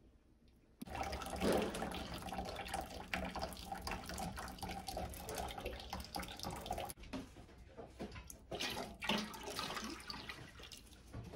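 Hot soybean mash for tofu being ladled into a cloth straining bag over a bowl in a sink, the soy milk splashing and trickling through the cloth. It starts suddenly about a second in; later on come lighter separate splashes and knocks.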